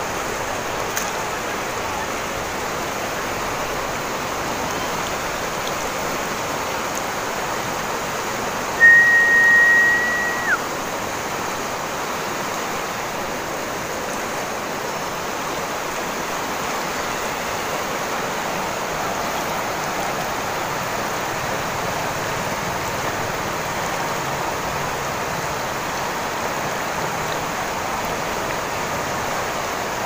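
Shallow river rushing steadily over rocks and gravel rapids. About nine seconds in, a single loud, high, whistle-like tone holds for under two seconds and ends with a quick drop in pitch.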